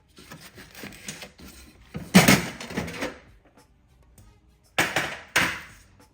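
Stiff, rusty old toolbox being forced open by hand: metal scraping and rattling for a few seconds, loudest about two seconds in, then two short sharp scrapes about half a second apart near the end.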